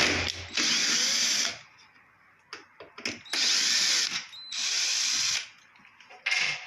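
Power drill-driver spinning in short runs of about a second each while backing out two screws, the runs coming in two pairs with a short extra burst near the end.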